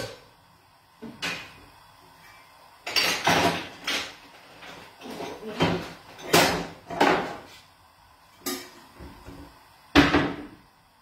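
Metal cookware clanking and clattering as pots and lids are handled: a string of separate knocks and rattles, some ringing briefly, the sharpest one near the end.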